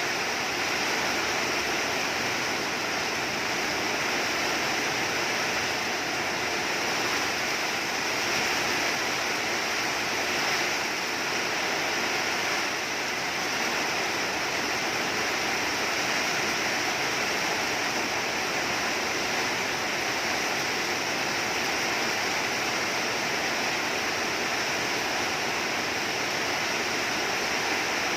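Steady downpour of rain.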